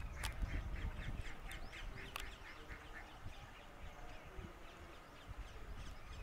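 A bird calling in a fast, even run of short calls, about four a second, loudest over the first three seconds and then fainter, over a low rumble in the first second or so.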